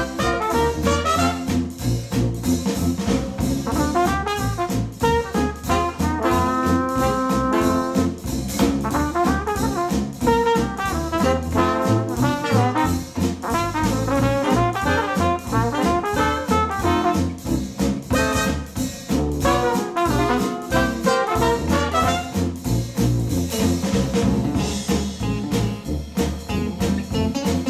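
Brass-led jazz instrumental with a steady beat, played back through Cambridge Audio SX50 bookshelf speakers driven by a NAD C 338 integrated amplifier.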